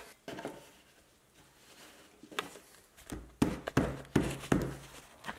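Wooden blocks knocking as they are set and tapped into place by hand against laminated skirting board: a few faint clicks, then a quick run of sharp knocks about three seconds in.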